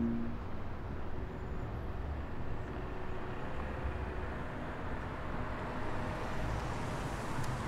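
Steady low rumble of city traffic and street ambience on an open urban square. The last note of a synth music sting cuts off in the first half second.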